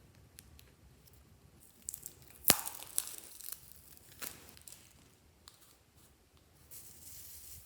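Slime being worked by hand, with sharp crackles and pops. The loudest pop comes about two and a half seconds in, and a short soft hiss follows near the end.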